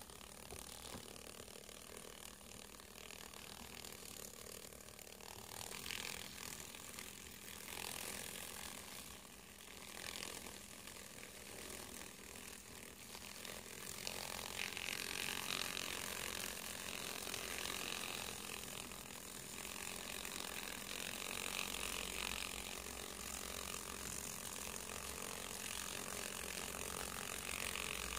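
Male silkworm moths fluttering their wings against a paper towel: a quiet, fast, ratchet-like rattling whir. It grows louder about halfway through.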